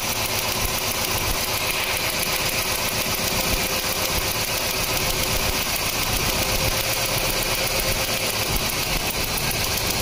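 2009 Hyundai Accent's 1.6 L four-cylinder engine idling steadily, with a fast, even ticking through it. The engine is misfiring on cylinder 1 because of a cracked, tracked ignition coil boot.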